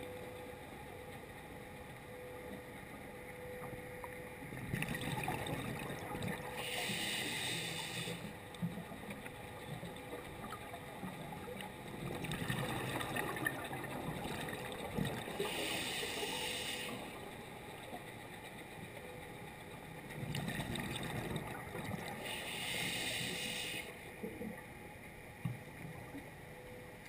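Scuba diver breathing through a regulator underwater, three breaths about eight seconds apart, each a bubbling rumble followed by a short hiss.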